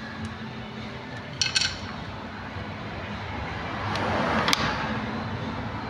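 Light clicks and clinks of small hard tools and glue tabs being handled during paintless dent repair: a quick cluster of clinks, then a rustling that swells and ends in one sharp click about four and a half seconds in.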